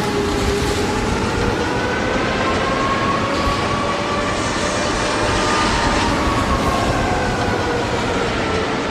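Tornado sound effect: a loud, steady rush of storm wind with the wail of a tornado warning siren gliding slowly up and down over it.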